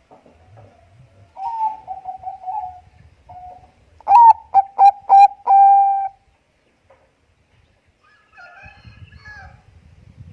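Zebra dove (perkutut bangkok) singing. A rolling trill comes about a second and a half in, then a loud phrase of four short notes ending on a long held coo about four seconds in. Fainter, higher chirping follows near the end.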